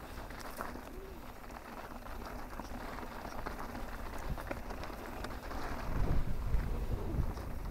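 Mountain bike rolling fast down a dirt trail: tyres crunching over loose dirt and rock, with scattered small clicks and rattles, and a low rumble that swells about six seconds in.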